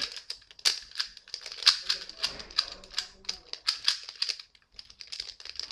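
Rubik's cubes being turned quickly during a speedsolve: a rapid, irregular run of plastic clicks as the layers are twisted.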